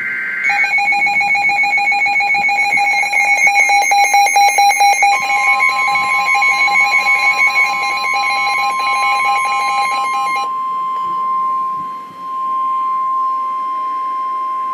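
Emergency Alert System alert tones. The last of the digital header data bursts ends about half a second in. Then comes the EAS attention signal, a steady alarm tone with a wavering loudness. About five seconds in, the single 1050 Hz NOAA Weather Radio warning tone joins it, and it carries on alone after the attention signal stops about ten seconds in, marking the start of a severe thunderstorm warning.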